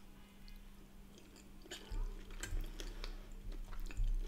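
Close-miked chewing of a mouthful of soft potato and corned beef: wet mouth sounds, with a few light clicks of cutlery on a plate. Quiet at first, the sounds pick up about two seconds in.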